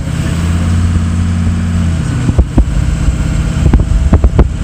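Vehicle engine and road noise, a steady low drone that drops off about two seconds in, followed by several sharp knocks and thumps.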